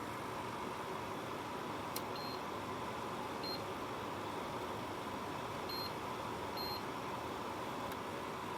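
Crecolife compressor dehumidifier running with a steady fan hiss and hum. A click, then four short high beeps from its control panel about 2, 3.5, 6 and 7 seconds in.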